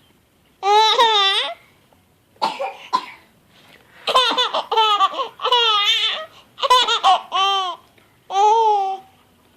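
A baby girl laughing in repeated high-pitched bursts, about seven of them. There is a short, rough, cough-like burst about two and a half seconds in.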